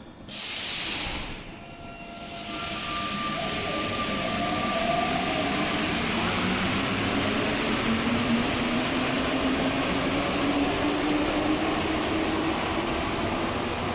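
Santiago Metro NS-93 rubber-tyred train at a station: a sudden sharp hiss of air that dies away within a second, then the train pulling out, its running noise building and its motor whine rising slowly in pitch as it gathers speed.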